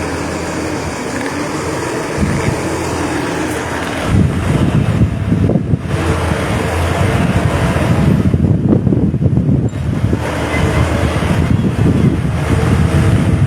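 Heavy road vehicle running in the street, its engine rumbling, with wind buffeting the microphone; the rumble grows heavier about four seconds in.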